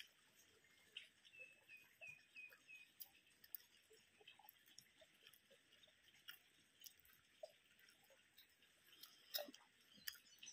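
Very faint eating sounds: chewing, with small clicks and taps as fingers pick food from steel containers. A quick run of about six short high notes comes about a second in, and one sharper click comes near the end.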